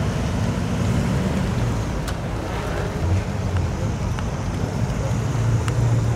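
1964 Pontiac GTO's V8 engine running at a slow roll, a steady low exhaust note that grows louder near the end as the car comes close.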